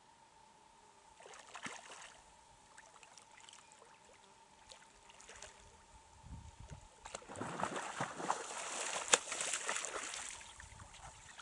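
Water splashing and sloshing: a short splash about a second and a half in, then a louder stretch of splashing for about three seconds near the end.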